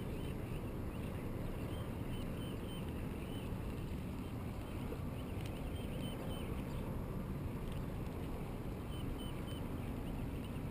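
Steady low rumble of wind and lake water around a small fishing boat, muffled by a waterproof action-camera housing, with faint bird chirps in small groups every couple of seconds.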